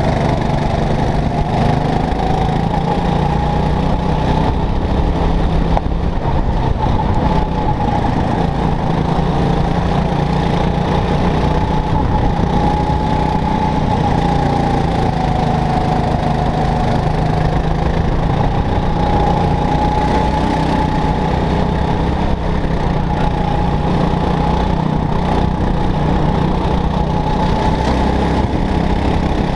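Go-kart engine running at racing speed, loud and steady, its whine rising and falling in pitch as the kart speeds up and slows through the corners.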